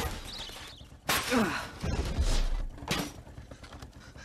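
Luggage trunks flung out of a car and landing on the ground in a run of heavy crashes, thuds and clatter, with a low rumble about two seconds in.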